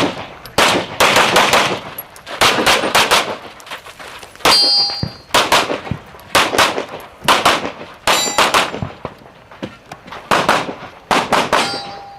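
Handgun fired rapidly in quick strings of shots at targets. Steel plate targets ring out with a metallic ding when hit, about three times.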